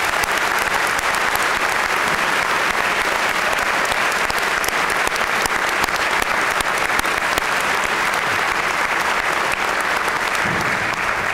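Large audience applauding steadily, tapering off near the end.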